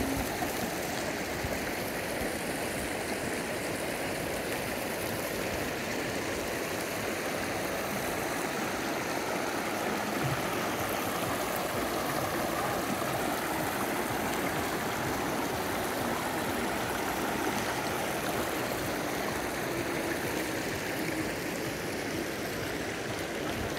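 Running water rushing steadily, like a stream or small cascade, at an even level throughout.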